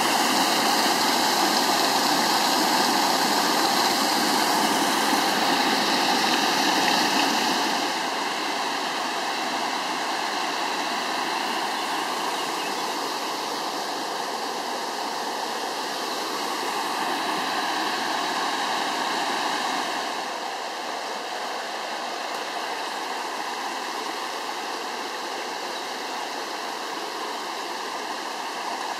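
Swollen forest stream in spate after a heavy downpour, its muddy floodwater pouring over a small waterfall and rushing along the channel in a steady noise. It is louder for the first eight seconds, then drops, and drops a little further about twenty seconds in.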